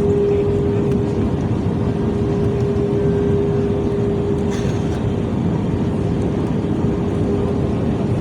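Airliner cabin noise: a steady, loud rumble of the jet engines and airflow, with a constant hum running through it.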